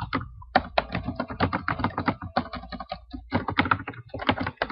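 Typing on a computer keyboard: a quick, irregular run of key clicks, with a short pause about three seconds in.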